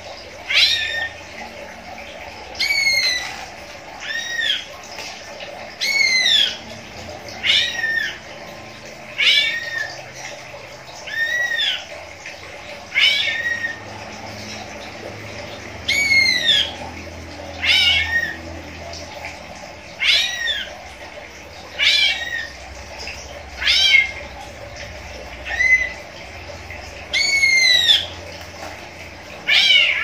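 Caged cucak ijo (greater green leafbird) calling over and over, about one call every two seconds. Each call is short and arched, rising and then falling in pitch.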